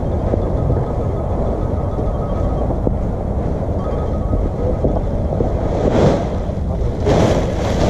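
Wind buffeting the microphone in a steady low rumble, with two louder gusts near the end.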